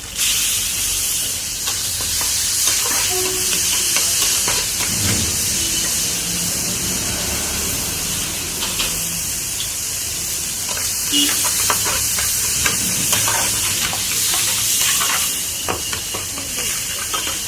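Dal tadka sizzling in a pan while it is stirred: a steady hiss with frequent short clicks and scrapes of a metal ladle against the pan.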